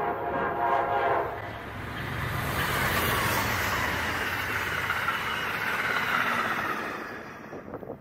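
Amtrak P42 diesel locomotive sounding its multi-note horn, which cuts off about a second in, then the passenger train rushing past at speed with a loud steady roar of wheels on rail that fades just before the end.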